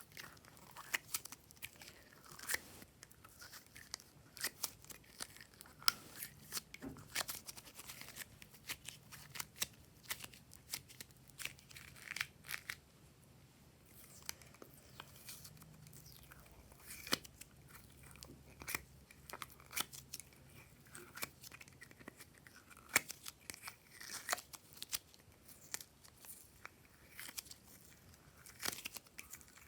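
Glossy slime being kneaded and stretched by hand, making irregular sticky clicks and crackling pops.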